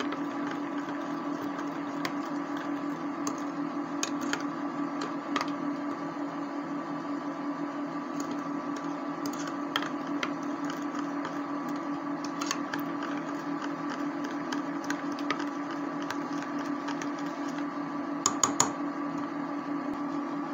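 Steady electric hum of a running electric cooktop, with a few light clicks of a metal spoon against a glass bowl, the loudest a quick double click near the end.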